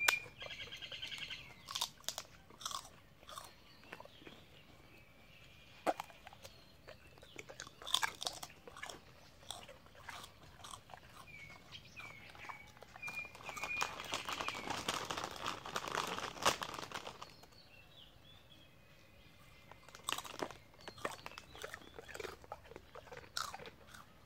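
A large dog crunching and chewing a snack, with irregular crunches throughout and a denser, louder stretch of chewing about two-thirds of the way through.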